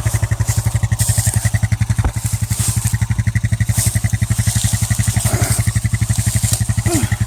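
Small vehicle engine running steadily at idle, a rapid even pulsing that holds at one speed.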